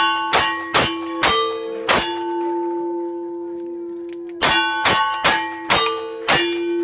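Single-action revolver fired five times in quick succession, each shot followed by the clang of a steel target. The steel plates ring on through a pause of about two and a half seconds, then five more shots and clangs follow.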